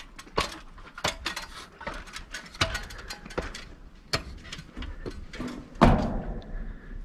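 A run of sharp clicks and knocks from a mechanism being worked, about two to four a second at uneven spacing, with one louder knock near the end.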